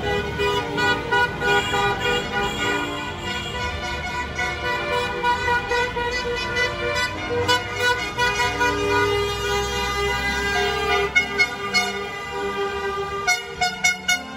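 Car and scooter horns honking at once at several pitches, some held for seconds, over the engines of passing cars and motorbikes.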